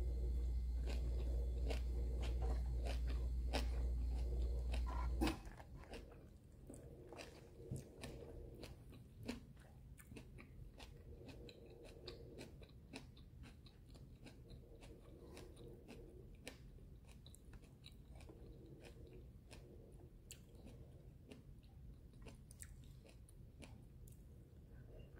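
Close-up chewing and crunching of crispy fried boneless bangus (milkfish), with many small crisp crackles. A loud steady low hum runs underneath and cuts off suddenly about five seconds in.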